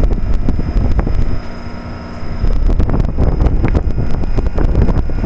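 1998 Trane XL1800 5-ton heat pump outdoor unit running in cooling mode, its reciprocating compressor and condenser fan going steadily, with heavy air buffeting on the microphone that eases briefly about a third of the way in. The unit is running at about 2.5 tons, half its capacity, by the owner's reckoning.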